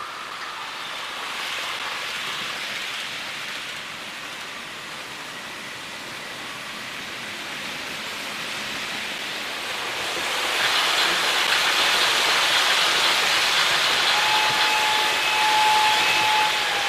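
Märklin H0 model trains running on the layout's track: a steady hissing rattle of small wheels on the rails. It grows louder about ten seconds in as a train crosses close by, and a steady high tone joins near the end.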